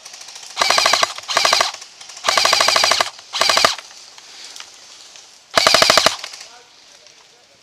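Airsoft gun firing five short full-auto bursts close by, each a rapid, even rattle of shots under a second long. The third burst is the longest, and the last comes after a pause of about two seconds.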